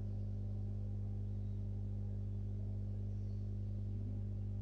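A steady low hum that holds one pitch without change, with a fainter higher overtone.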